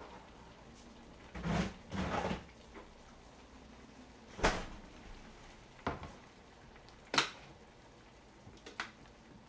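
Kitchen handling noises as a plastic kimchi container is fetched and set down on the counter: a few separate knocks and clunks, a heavier pair about a second and a half in, then sharper knocks spaced a second or so apart.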